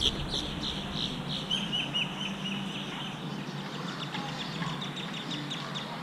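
Birds calling in a rapid run of short, high, downward chirps, several a second, loudest in the first half and fainter toward the end, over a steady low outdoor background.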